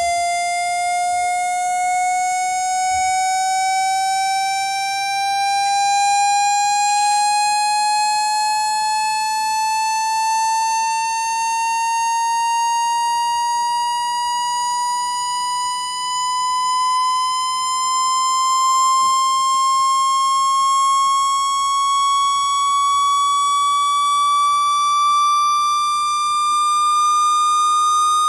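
Synthesized water-ejection tone sweep, played through a speaker to vibrate water out of it: one steady, buzzy electronic tone gliding slowly and evenly upward in pitch, part of a 165 Hz to 4000 Hz sweep.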